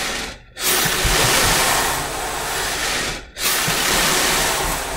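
A steady hiss that cuts out briefly twice.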